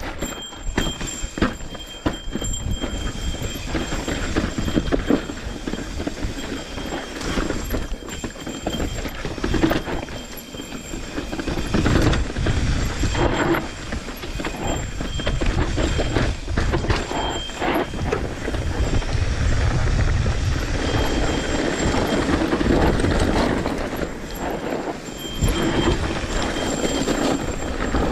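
Mountain bike riding fast down a rocky dirt trail: tyres crunching over rock and loose gravel, with the bike rattling and clattering over bumps. The noise runs without a break, with many sharp knocks.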